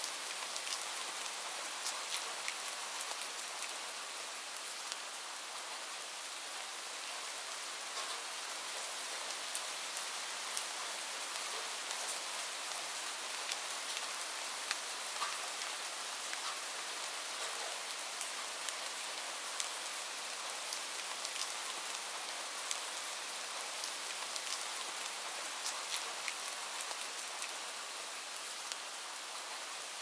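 Light rain falling steadily: an even high hiss with many scattered sharp drop ticks.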